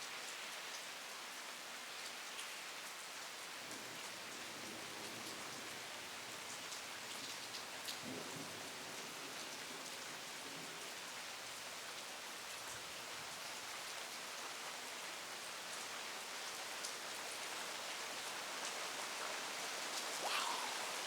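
Rain falling steadily in a thunderstorm, a continuous hiss with scattered drops ticking. It grows a little louder near the end.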